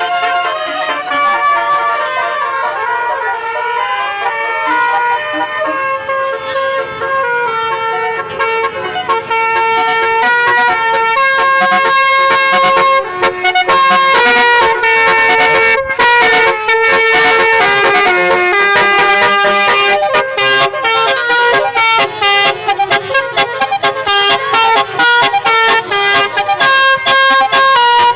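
Bus 'telolet' musical horn, a set of several tuned horns sounding together, playing a tune of stepped chord notes. Over the last several seconds it breaks into quick short toots.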